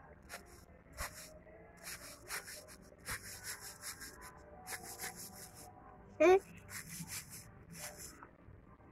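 A mantis in threat display with wings raised makes short, dry, hissing rasps, about two a second and unevenly spaced. A brief, loud, wavering squeak cuts in about six seconds in.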